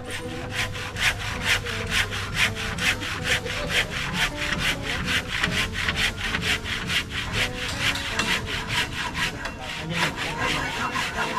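Handsaw cutting through hard timber in steady back-and-forth strokes, about three or four a second.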